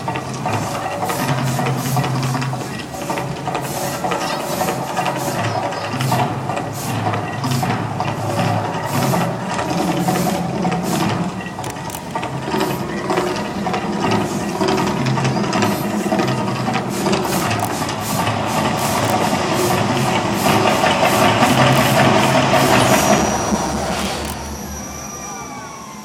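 The Mirage Volcano show's eruption: steady hissing and rushing from its fire and steam effects over a loud soundtrack with sharp drum-like hits and low notes that change every few seconds. It dies away about 24 seconds in, and a falling, siren-like wail begins near the end.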